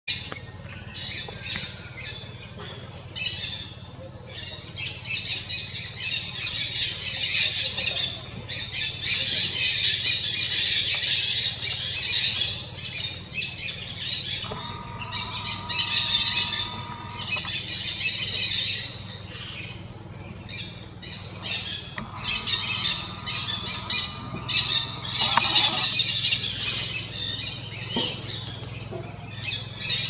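A big feeding flock of dusky-headed parakeets calling all at once: a dense, unbroken chatter of overlapping harsh squawks and chirps that swells and eases. Twice a steady tone runs under the calls for about three seconds.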